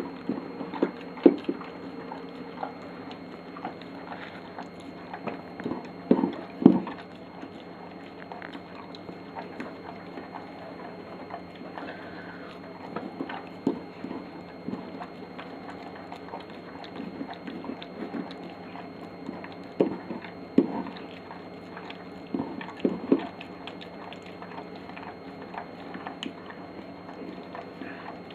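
Flat-coated retriever eating crumbly dog-food cake from a glass plate: chewing and licking, with irregular clicks and knocks against the plate, the loudest about a second in and again around six to seven seconds in.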